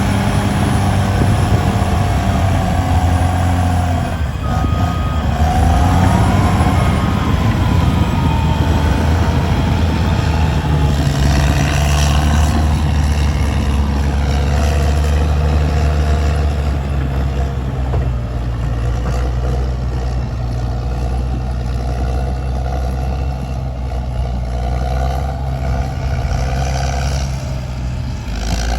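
Heavy diesel engines of a dump truck and a bulldozer working with a steady low drone. A short run of beeps comes about five seconds in.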